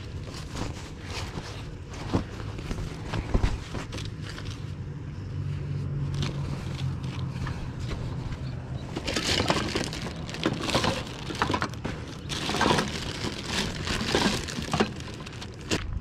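Items being rummaged through and handled: irregular rustling, crinkling and light clattering that grows busier past the middle. A steady low hum runs for a few seconds near the middle.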